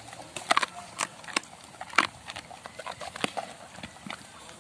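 A dog chewing food in its mouth, with irregular sharp crunches and clicks, several close together in the first two seconds and a louder one about three seconds in.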